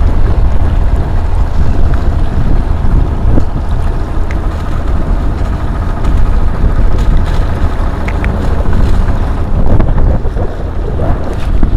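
Wind buffeting the action camera's microphone: a loud, steady low rumble.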